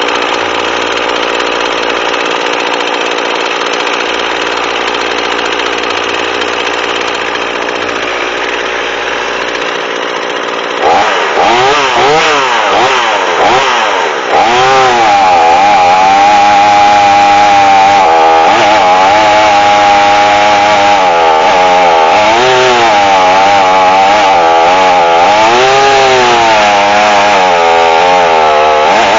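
A chainsaw in a chainsaw mill runs steadily at first. About eleven seconds in it is revved up and cuts lengthwise through the log, and its pitch keeps rising and falling as it bogs under load. It is an underpowered saw fitted with an ordinary chain rather than a ripping chain.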